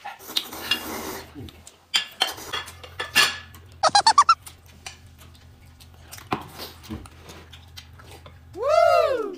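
Ceramic bowls and chopsticks clinking and knocking on the table as a bowl is set upside down over a bowl of rice. About four seconds in there is a quick run of six short high squeaks, and near the end one pitched sound that rises and then falls.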